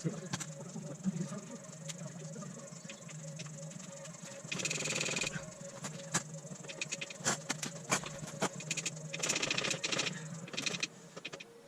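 A hand spanner working the exhaust fastenings on a motorcycle: scattered metal clicks and clinks, with two longer rasping stretches, about four and a half seconds in and again about nine seconds in.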